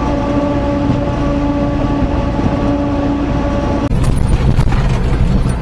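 Daihatsu Hijet kei truck heard from inside the cab while cruising: a steady engine and drivetrain drone with a whine in it. About four seconds in it changes abruptly to a lower running sound with rattles and clicks as the truck slows onto a driveway.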